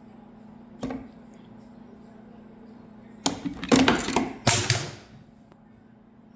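Clicks and clatter of hand work on a backpack blower's carburetor as the throttle cable and fuel line are worked loose: one sharp click about a second in, then a loud burst of rattling and clacking of plastic and metal parts lasting about two seconds.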